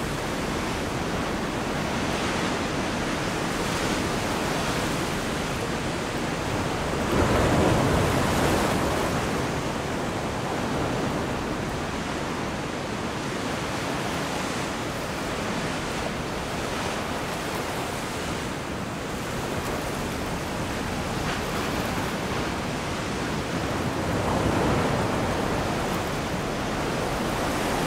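Sea waves washing in a steady rush, with a louder wave swelling about seven seconds in and another near the end.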